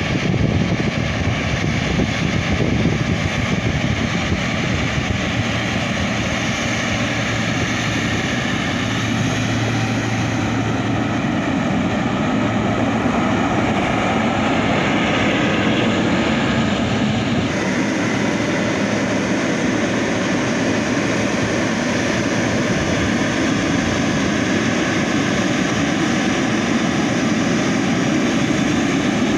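Jet engines of Boeing 777 airliners moving on the ground close by: a steady, loud engine hiss with a whine running through it. The sound changes abruptly about two-thirds of the way through as a second aircraft takes over.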